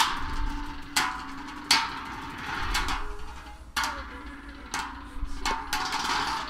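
Two Beyblade Burst spinning tops, one a Doomscizor, clashing again and again in a red plastic sled bowl: several sharp clacks at irregular intervals over a steady hiss of the tops spinning on the plastic.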